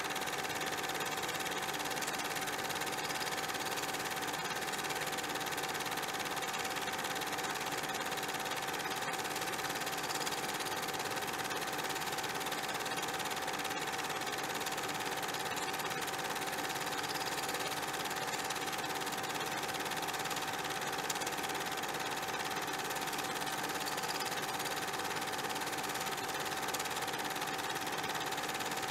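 Steady whirring noise with a constant mid-pitched hum.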